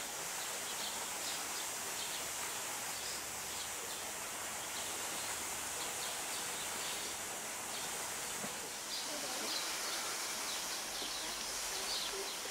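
Outdoor ambience: a steady hiss with faint, scattered bird chirps.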